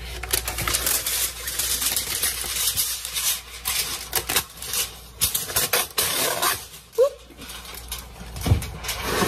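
Heavy-duty aluminium foil being pulled from its cardboard box, crinkling and crackling, with the cardboard flap rustling. A low thump comes near the end.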